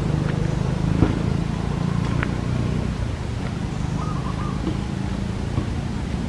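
A steady low mechanical hum, with a few sharp clicks scattered through it.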